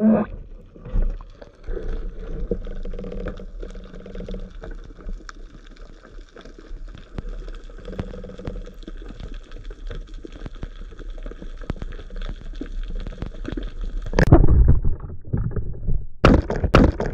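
Underwater sound through a camera housing: a steady low water rumble with scattered faint clicks and crackles. About 14 seconds in comes a sudden loud rush and thud as the speargun is fired into the sandy bottom, followed by more loud rushing bursts near the end.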